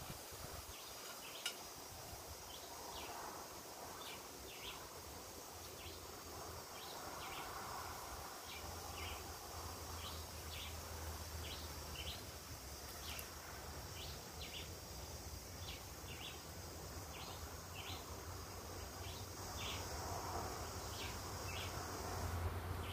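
Quiet rural outdoor ambience: a short high chirp repeating once or twice a second over a steady high insect drone that cuts off near the end, with a low hum coming in about eight seconds in. Faint rustling and a couple of light clicks as lumps of charcoal are set by hand into a clay coal pot.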